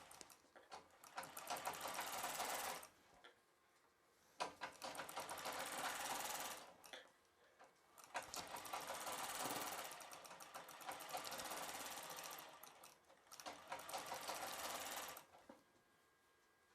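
Sewing machine stitching in short runs of a few seconds each, stopping and starting about four times, as a folded-in neck binding on a silk blouse is top-stitched. It stops about three-quarters of the way through.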